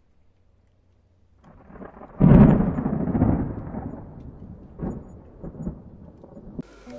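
Logo-intro sound effect: after a moment of silence a rumble swells into a heavy, thunder-like boom about two seconds in, which dies away over a couple of seconds with a few faint crackles after it.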